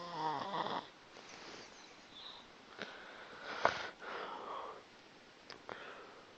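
A sleeping pet snoring. A pitched snore falls slightly in pitch over the first second, then softer breaths follow, with a short sharp click about three and a half seconds in and another near the end.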